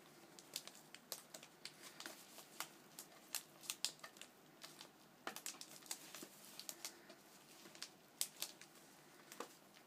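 Faint, irregular crinkling and crackling of gift wrapping being picked at and pulled by hand, a tightly wrapped present that won't open.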